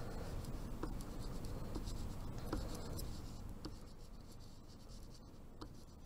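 Oil pastel rubbing and scratching across painted paper as a flower is coloured in with short strokes, fainter in the last couple of seconds.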